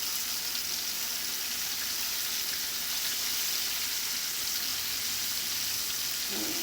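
Flour-coated shrimp frying in a pan of hot oil, a steady, even sizzle.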